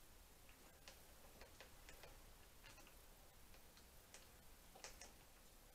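Faint, irregular metal clicks of an Allen key being turned and reseated in a screw on a motorcycle's handlebar throttle housing, about ten small ticks over a few seconds.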